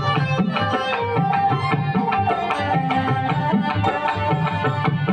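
Surando, the Sindhi bowed lute, playing a held, gliding melody over a steady drum rhythm.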